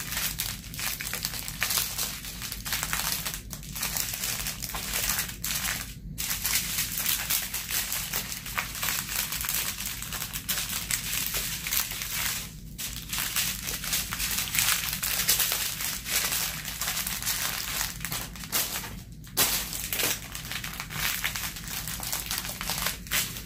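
Small clear plastic bags of diamond painting drills crinkling and rustling as they are handled, with brief pauses three times.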